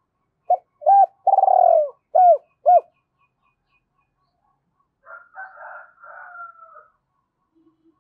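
Spotted dove cooing: a phrase of five loud coos, with short notes around one long, drawn-out note in the middle.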